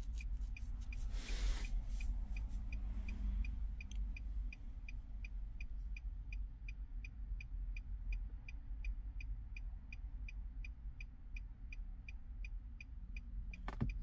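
Car hazard-light flasher ticking steadily, about three ticks a second, over a low steady rumble inside the car.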